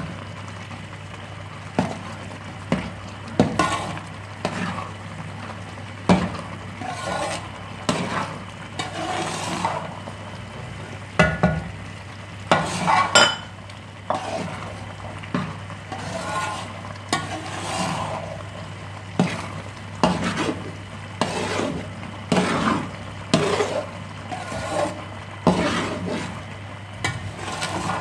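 A metal spoon scraping and knocking around a large metal pot as thick carrot halwa is stirred and roasted in ghee, in irregular strokes about once or twice a second, with a faint sizzle. A steady low hum runs underneath.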